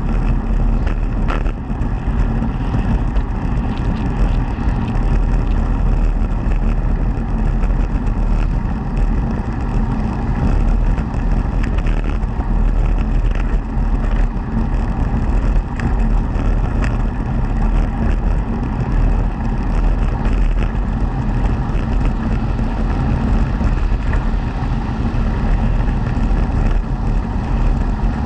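Steady rolling rumble and wind noise of a small vehicle riding along an asphalt cycle path at about 35 km/h, with a constant mechanical hum.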